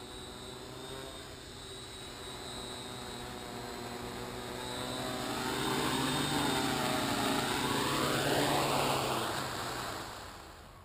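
Quadcopter's electric motors and propellers whirring as it comes in low and lands, growing louder as it nears, with the pitch sliding down and back up, then winding down near the end.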